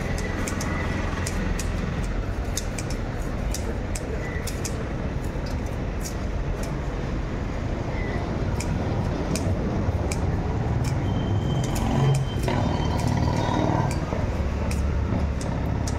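Steady rumble of road traffic, louder for a couple of seconds about twelve seconds in, with frequent short crisp clicks and scrapes of a large knife scraping scales off a pomfret on a wooden block.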